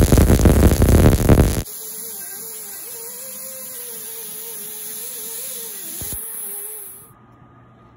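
MIG welder arc crackling steadily as a bead is run on steel, stopping abruptly about a second and a half in. Then a small grinder with a stripping disc runs against the rim of a steel brake drum: a steady whine that wavers slightly in pitch as the disc is worked, dying away about a second before the end.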